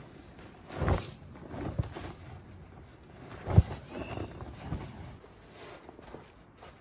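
Irregular thuds and rustling, like footsteps or handling on the forest floor. The loudest thuds come about a second in and a little past three and a half seconds. There is one short, high whistle-like call at about four seconds.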